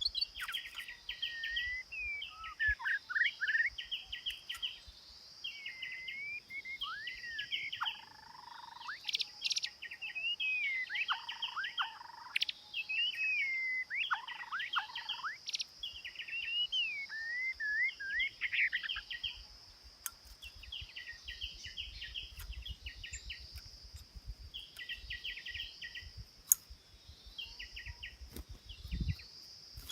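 A songbird singing in short, repeated phrases of fast chattering trills mixed with slurred whistles, coming every second or so over a steady high-pitched hiss. A few low thumps and rumbles come near the end.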